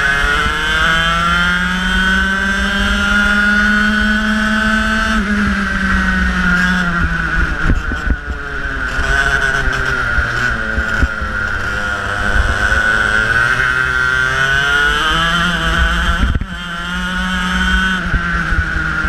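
Racing kart's engine heard from on board, its pitch climbing for about five seconds, then dropping sharply as the throttle is lifted, and rising and falling again through the following corners and straights. A brief sharp dip comes about 16 seconds in, then the revs climb and fall away near the end.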